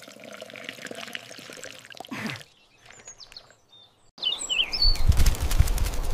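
Water pouring from a watering can into a potted plant, a soft steady splash that stops after about two seconds. A few short bird chirps follow, then about four seconds in a loud rushing noise with a low rumble comes in.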